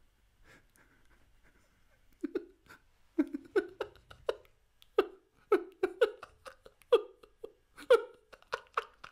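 A man's forced, spasmodic laughter, acted as the Joker's uncontrollable laughing fit. Faint breathing comes first; then about two seconds in it breaks into a run of short, choppy laugh bursts, two or three a second, that keep coming.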